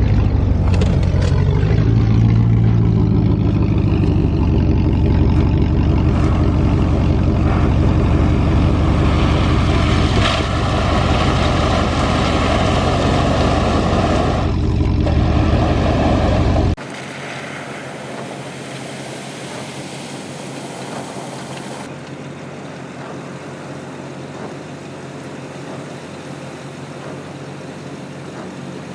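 A four-wheel-drive's engine runs steadily under load while driving off-road. About two-thirds of the way through it cuts off abruptly, giving way to a much quieter, steady rushing noise.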